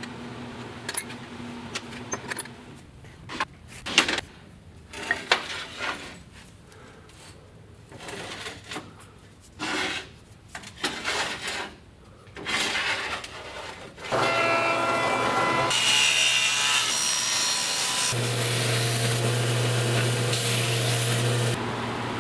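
Irregular scraping and rubbing strokes of hand work on a workpiece, then, about fourteen seconds in, a power tool runs steadily, its pitch shifting abruptly a few times.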